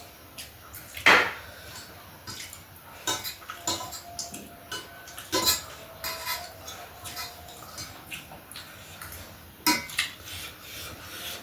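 Eating utensils clinking and tapping against plates and bowls during a meal, in scattered irregular clinks, some briefly ringing, with a few louder ones about a second in, midway and near the end.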